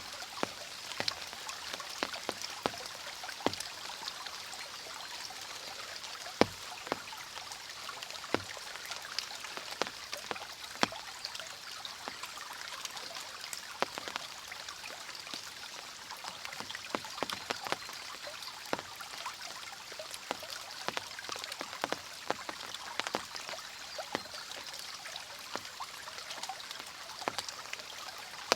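Water flowing in a mountain stream, with rain falling. It is a steady rush of running water, with many sharp drips and splashes scattered irregularly through it.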